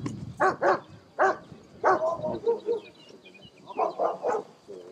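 German shepherd dog barking: four sharp barks, a pause of about a second and a half, then three more in quick succession.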